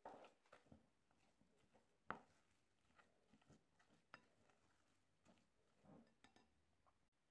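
Faint, scattered scrapes and taps of a spatula against a bowl as a thick mascarpone and biscuit-crumb mixture is stirred and folded. The sharpest tap comes about two seconds in.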